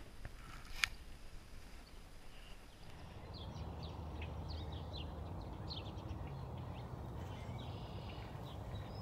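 Small birds chirping in short, quick high notes from about three seconds in, over a steady low outdoor rumble. A single sharp click sounds about a second in.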